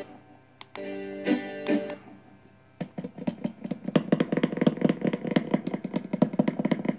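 Small built-in speaker of a handheld Bluetooth karaoke microphone playing music: a brief snippet of one tune about a second in, then after a short pause a guitar track of fast, evenly repeated plucked notes.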